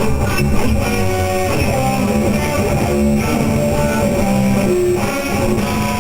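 Rock music led by an electric guitar playing a melody of separate notes.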